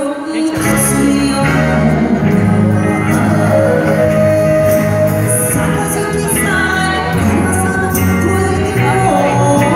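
Live band music with a woman singing into a microphone: drums and percussion under the vocal, amplified through a hall's PA, with a brief lull at the very start.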